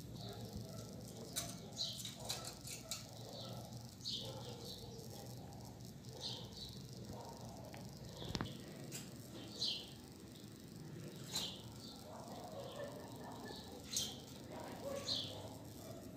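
Caged double-collared seedeaters (coleiros) giving short, high chirping calls, each a quick downward slide, about one every second or two, with a few faint clicks between them.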